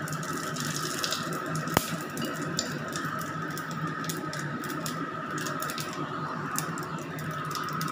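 Radhuni seeds sizzling and crackling in hot oil in an aluminium kadai, a steady dense crackle of the tempering (phoron) stage. A single sharp tap is heard about two seconds in.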